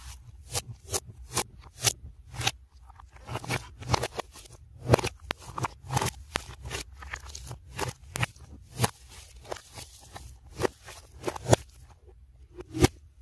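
Black slime being stretched, folded and pressed by hand, giving irregular sharp clicks and pops from trapped air bubbles, several a second, played backwards.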